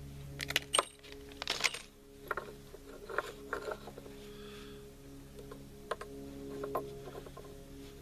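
Scattered light metallic clicks and clinks of small rifle parts being handled and fitted during an AR-style upper receiver build, over a steady low hum.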